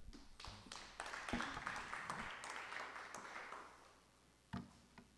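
Applause from a small audience, building about half a second in and dying away after about three seconds. Two separate knocks follow near the end.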